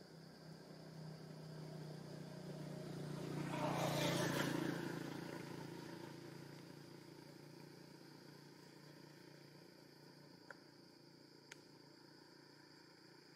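A motor vehicle passing by on the road, its engine hum and tyre noise swelling to a peak about four seconds in, then slowly fading away.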